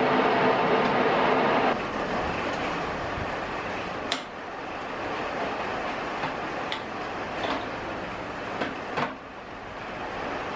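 A restored Wasino 550 lathe runs with a steady hum that stops abruptly about two seconds in. A steady hiss of rain is left, broken by several sharp clicks as the headstock's gear-selector levers are moved.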